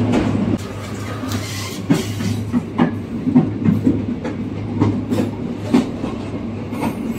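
Class 41 electric locomotive rolling past close by: a steady low hum under a series of irregular wheel clacks over the rail joints.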